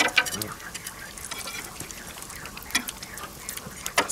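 Metal spatula scraping and clacking on a flat griddle plate, with a few sharp clacks at the start, about two-thirds through and near the end. Bacon and eggs sizzle faintly on the hot plate throughout.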